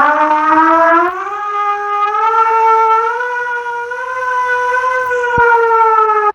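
Playback of Russia's emergency alert alarm: a siren rising in pitch over the first second, then holding one steady tone with strong overtones. It falls slightly near the end and cuts off abruptly.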